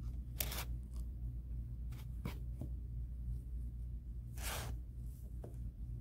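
Jute nautical rope rustling and scraping in a few short bursts as hands press and wind it around a planter pot, the loudest about half a second in and again near the end, over a steady low hum.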